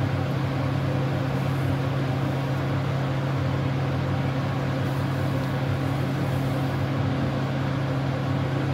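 Steady low mechanical hum, unchanging in level, over water boiling in a wok.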